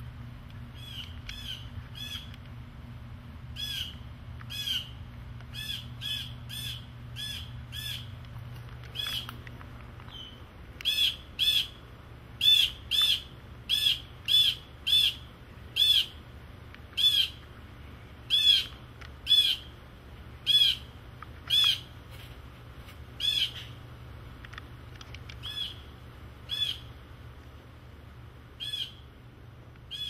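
Blue jay giving harsh, repeated scolding calls, one every half second to a second and a half, loudest in the middle stretch: alarm calls mobbing a cat. A steady low hum runs underneath.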